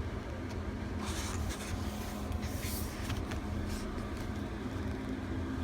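Album inserts being handled, rustling briefly twice, over a steady low background hum.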